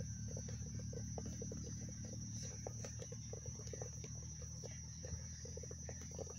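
Many soft, irregular taps of soccer balls being touched by several players' feet on grass, over a steady high insect drone and a low rumble.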